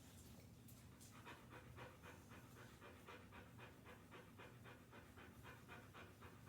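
Large dog panting quickly and evenly, about five pants a second, faint. The panting is her usual behaviour rather than a sign of distress, which is why her respiration counts at a high 120 a minute.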